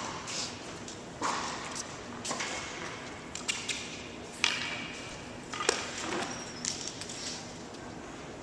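Tennis balls striking and bouncing, about half a dozen irregular sharp pops with tails that ring on in a large indoor tennis hall.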